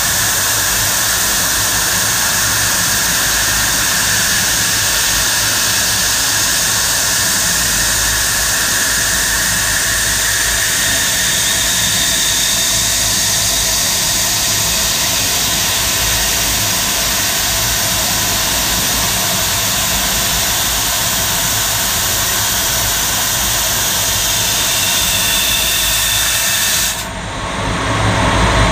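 8 kW fiber laser cutting through 25 mm aluminium plate: a loud, steady hiss of the assist gas jetting through the cut. The hiss cuts off abruptly near the end as the cut finishes.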